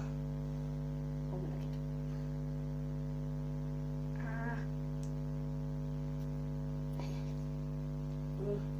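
Steady electrical mains hum with a stack of even overtones, unchanging throughout. A brief voice-like sound breaks in about four seconds in.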